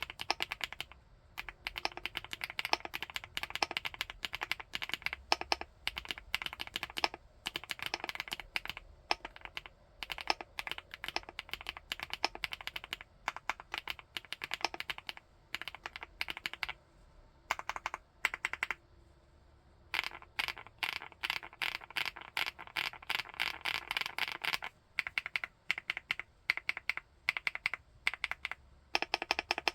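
Typing on a 75%-layout full-aluminium keyboard: fast runs of crisp keystrokes broken by short pauses, with a longer pause a little past the middle.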